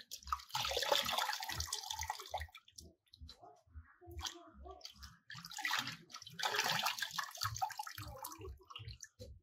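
Water splashing and dripping as hands swish pigweed leaves around in a bowl of washing water and lift out dripping handfuls. There are two spells of splashing, about a second in and again around six seconds in, with lighter drips between.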